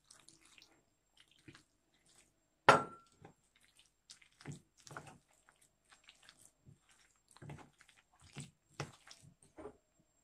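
Metal fork stirring wet gram-flour batter in a glass bowl as water is added: irregular wet squishes and light clicks of the fork against the bowl, with one sharp ringing clink of metal on glass a little under three seconds in.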